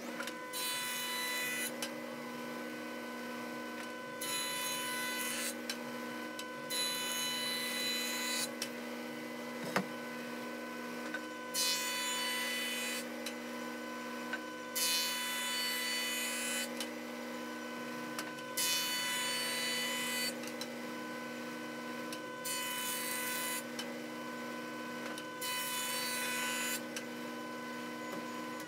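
Jointer running steadily with a constant motor hum, its cutterhead shaving cherry boards in about eight passes; each pass is a loud one-to-two-second burst of cutting noise over the hum.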